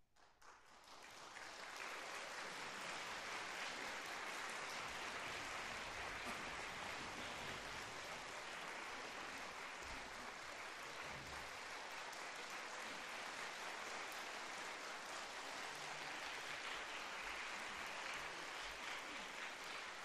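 Audience applauding, building over the first two seconds and then holding steady.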